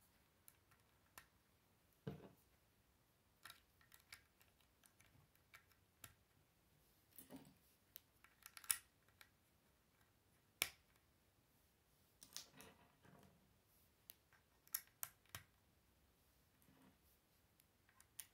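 Faint, scattered clicks and taps of plastic Lego bricks being handled and pressed onto a small Lego pickup truck model, with a few sharper snaps about nine and eleven seconds in and a quick run of clicks near the three-quarter mark.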